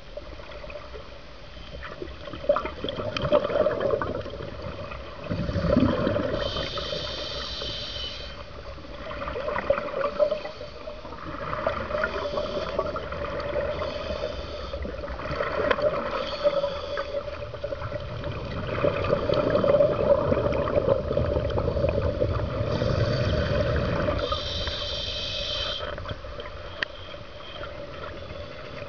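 Scuba breathing heard underwater: a diver's regulator and surges of exhaled bubbles gurgling, coming every few seconds.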